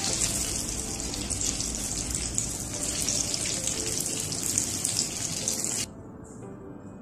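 Banana rolls deep-frying in hot oil in an iron kadai, a dense steady sizzle and crackle. It cuts off suddenly about six seconds in.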